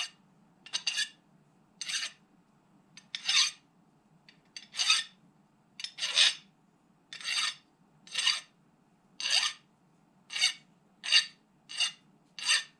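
Hand file rasping along the edges of a metal block in short, separate strokes, about one a second and a little quicker near the end: chamfering the corners so they are not sharp.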